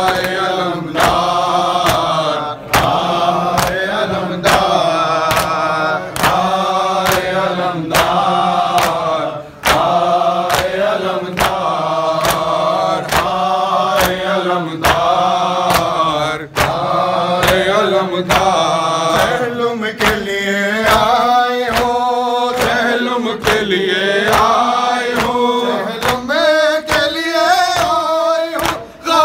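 Men chanting a noha, a Shia lament, together over matam: hands striking chests in a steady beat, about three strikes every two seconds.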